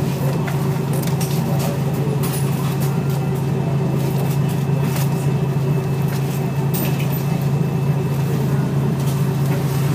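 A Scania L113CRL bus's rear-mounted 11-litre Scania DSC1171 turbo-diesel six running steadily at an unchanging pitch, with a few light clicks and rattles.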